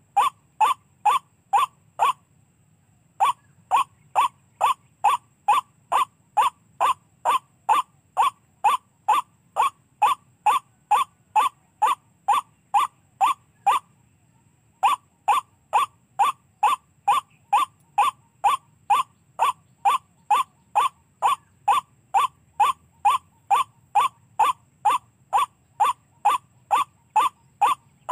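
Recorded white-breasted waterhen calls played through a small speaker as a lure: a steady, machine-regular run of short 'wak' notes, about two and a half a second. The run breaks off for about a second twice, first about two seconds in and again around fourteen seconds.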